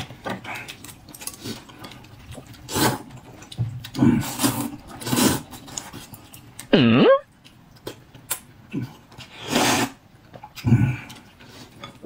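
Scattered rustling, clinking and crunching noises from handling and eating food, probably shelled boiled eggs. About seven seconds in there is one short voiced 'oh' that dips and then rises in pitch.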